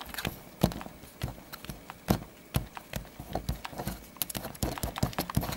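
Fingers and fingernails picking, scratching and tapping at the door of a thin cardboard advent calendar: a run of irregular small clicks and taps, several a second, as he tries to prise open a door that has no tab.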